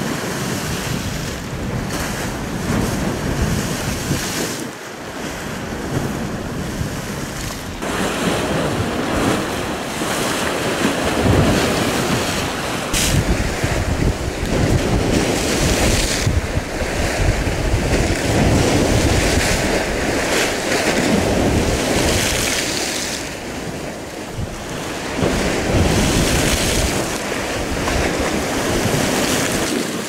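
Sea waves surging and breaking against an icy embankment wall, the wash swelling and falling again and again, with wind buffeting the microphone.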